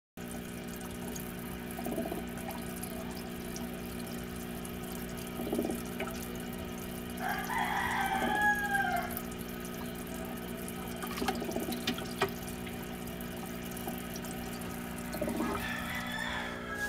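Steady hum from an aquarium's air pump, with occasional water splashes at the tank's surface. Two long animal calls with a pitch, falling at the end, sound from elsewhere, about halfway through and near the end.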